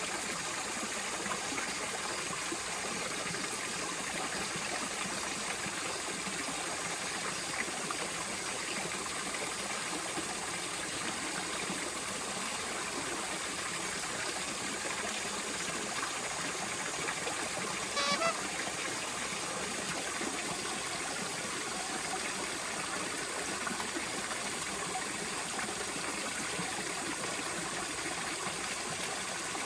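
Steady rush of flowing water, with a brief louder high sound about eighteen seconds in.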